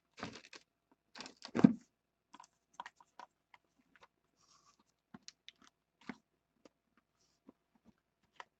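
Cardboard trading-card boxes being handled and set down: a cluster of rustling knocks, loudest about a second and a half in, then scattered light taps and clicks.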